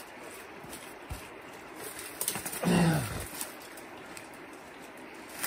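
Footsteps pushing through bush undergrowth, with one short, loud call falling in pitch about halfway through.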